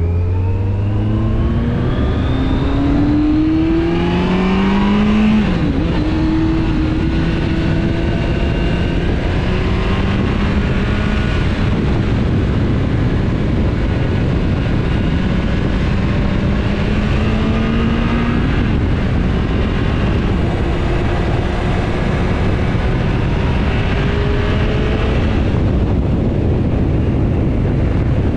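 Motorcycle engine pulling away from a stop, its pitch climbing fast, with a sharp drop about five seconds in at a gear change. It then runs at road speed with the pitch rising slowly, under steady wind and road noise.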